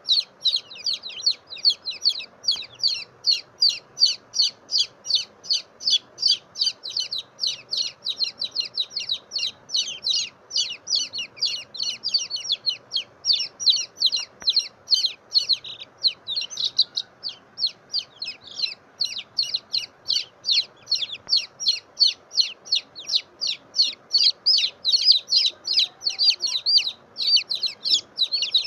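Baby chicks peeping: a continuous run of short, high-pitched peeps, about four a second.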